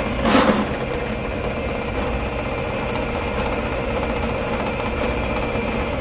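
Electric sectional drain-cleaning machine running steadily, turning its cable inside a clogged dishwasher drain line, with a brief clatter about half a second in.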